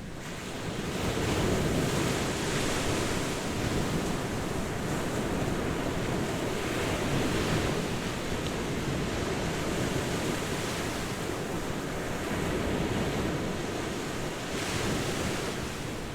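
Ocean surf breaking on a beach, a continuous wash with slow swells as waves come in, and some wind rumble on the microphone.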